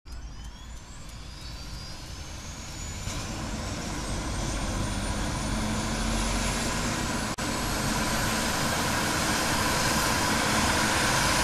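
Jet airliner engines spooling up for takeoff: a whine rising in pitch over the first few seconds while the engine noise grows steadily louder.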